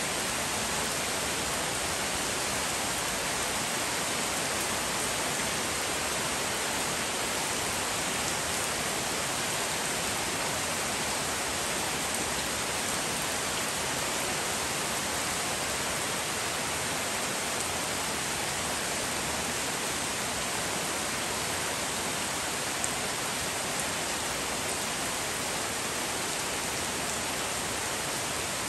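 Rain falling steadily, an even hiss that keeps up without a break.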